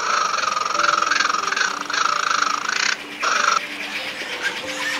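Raccoon giving a rapid, buzzing trill for about three seconds, breaking off and coming back briefly, with soft background music beneath.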